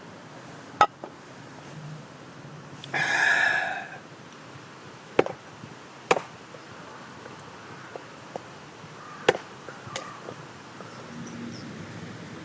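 Several sharp, separate knocks at uneven intervals, like wood being struck or chopped, with about a second of louder rasping noise about three seconds in.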